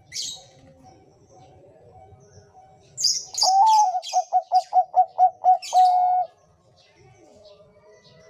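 Zebra dove (perkutut, Bangkok strain) cooing one song phrase about three seconds in: an opening note, a quick run of about eight short coos, then a longer held final note. Brief high chirps sound at the start and alongside the coo, over faint background bird calls.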